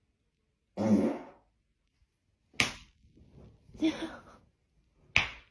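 A short fart about a second in, followed by a few separate short sounds with sharp starts and a brief burst near the middle.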